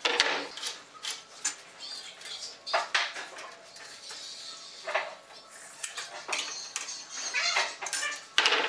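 Irregular knocks, clatter and scraping of rough-sawn wooden boards being lifted, shifted and laid against one another on a table.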